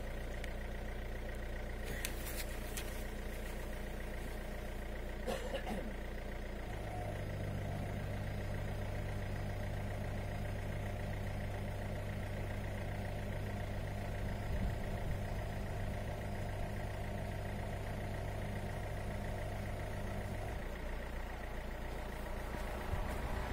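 Citroen C4 Grand Picasso idling while its air suspension compressor runs with a steady hum, starting about seven seconds in and stopping about thirteen seconds later, as the suspension is pumped up to its highest ride height. Two faint clicks before the compressor starts.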